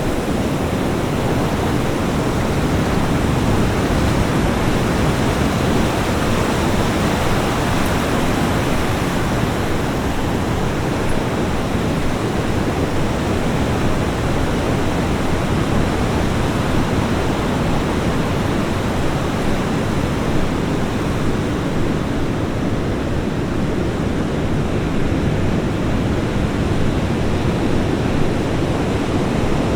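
Ocean surf breaking and washing onto a beach: a continuous rush of waves with no pauses, swelling slightly a few seconds in.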